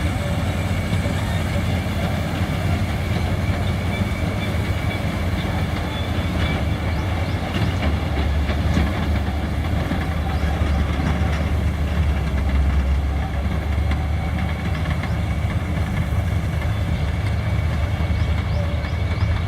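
Punni Grain Cruiser combine harvester running steadily, a continuous low engine drone with mechanical clatter over it.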